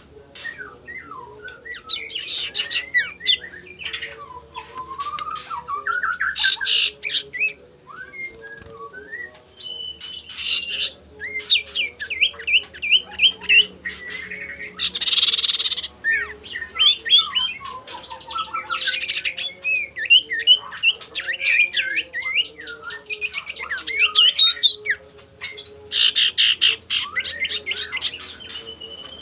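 An iora (cipoh) giving its challenge song toward a rival: a busy run of varied whistles, sliding notes and quick chattering trills, broken by harsh, raspy notes, the loudest about halfway through and again near the end.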